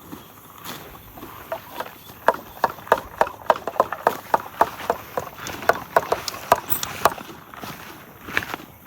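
Horse's hooves clopping on hard ground, a run of sharp steps about three a second that starts about two seconds in and stops about seven seconds in.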